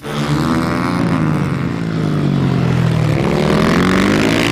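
Motocross bike engine running loud and steady. Its pitch sinks and then rises again. The sound starts suddenly.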